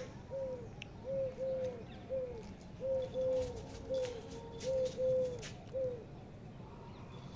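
A dove cooing: a run of about a dozen short, low, soft notes on one pitch, some in pairs, ending about six seconds in.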